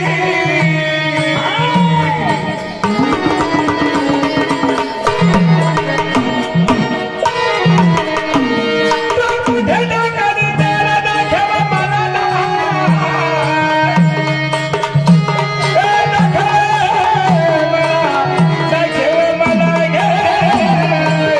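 Instrumental passage of a Marathi devotional gondhal song. A hand drum plays a quick, steady pattern of low strokes that bend in pitch, under a gliding melody line.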